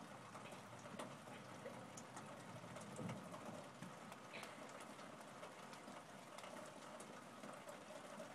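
Faint light rain on wet pavement: a soft, even hiss with scattered small drips, and a faint low bump about three seconds in.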